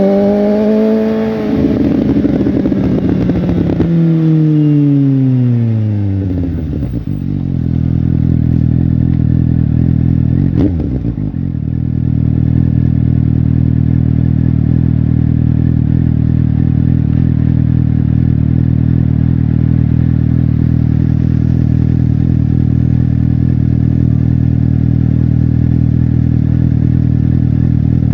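Suzuki GSX-S750's inline-four engine and exhaust, its note falling steadily as the revs drop over the first six or seven seconds. It then settles into a steady, even low note for the rest, with a brief blip about ten seconds in.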